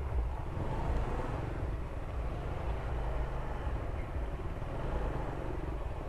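Honda Vario 125 scooter ridden at low speed, its engine running with a steady low rumble on the microphone.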